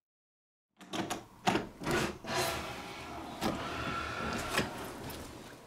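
A wooden front door being unlocked and opened: starting about a second in, a run of sharp clicks and knocks from the lock and handle, with a short steady squeak in the middle.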